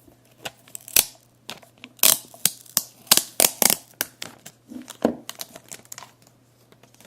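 Thin plastic wrap being peeled off a device by hand and crinkling in quick, sharp crackles. The crackling is busiest in the first few seconds and thins out near the end.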